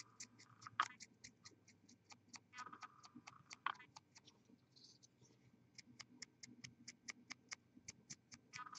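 Faint, even ticking, about five ticks a second, with a couple of slightly louder clicks.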